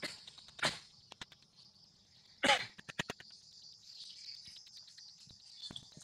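Steady high-pitched insect buzz from the surrounding forest, with scattered sharp clicks and one short, harsh, cough-like burst about two and a half seconds in, the loudest sound.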